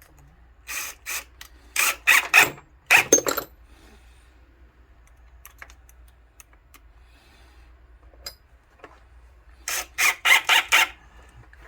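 Cordless impact driver driving deck screws in short bursts: a group of bursts from about a second in to three and a half seconds, then another quick series near the end.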